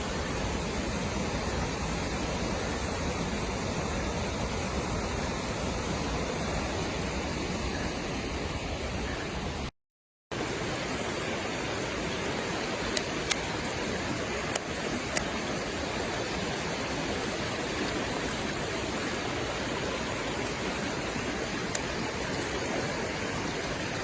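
Mountain stream rushing steadily over rocks, running high after a recent typhoon. The sound cuts out for about half a second around ten seconds in.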